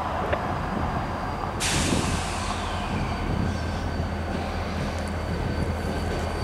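Diesel freight locomotives led by Illinois Central 6250 rolling slowly past, their engines running with a steady low drone. About one and a half seconds in, a sudden hiss of released air starts sharply and fades away over about a second.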